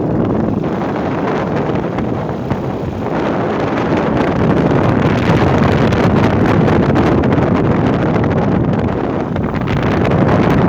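Wind buffeting the microphone of a moving Suzuki Skywave scooter, a steady rushing noise that gets louder about three seconds in.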